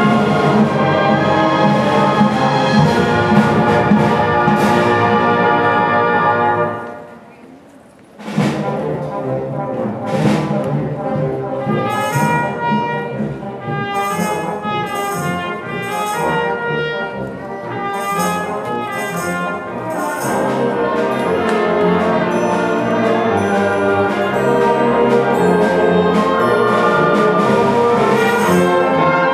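Youth concert band playing, with the brass to the fore. The music dies away to a brief pause about seven seconds in, then starts again more softly and builds back up to full volume.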